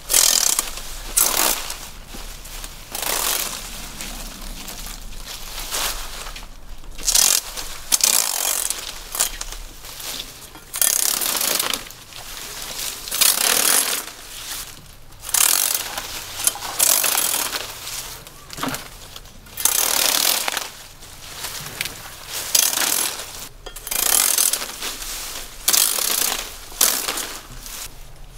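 Repeated strokes of a blade cutting into coconut: a rough, scraping burst every second or two.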